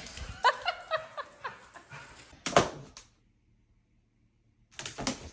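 Dog whining excitedly in short high-pitched whimpers for about two seconds, then a single sharp knock; the sound drops out abruptly about three seconds in before a brief rustle near the end.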